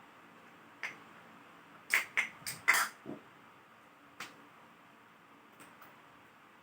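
Sharp plastic clicks and taps from handling the Sony Vaio ultrabook: about nine short clicks, a quick run of them between two and three seconds in, with single ones before and after.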